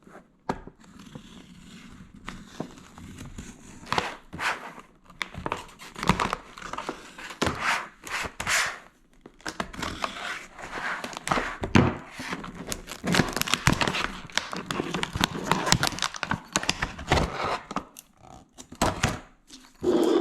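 Packaging of a tyre puncture repair kit being opened and handled: irregular crinkling and tearing, with occasional light knocks as its parts are taken out.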